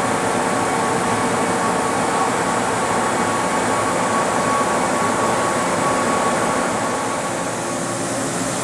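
A Tuda Jumbo 30-horsepower heavy-duty engine lathe running under power, turning a large part: a steady mechanical hum with a constant high whine from the drive.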